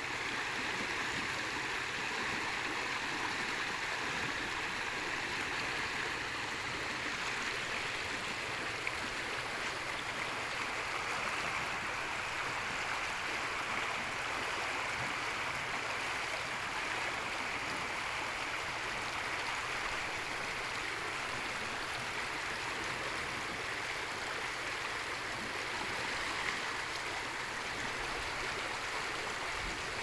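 Fast, muddy water flowing down a narrow concrete-lined channel: a steady, even rush of running water that keeps going without a break.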